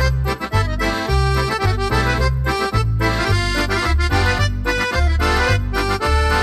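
Lively accordion music with a bass line stepping between notes.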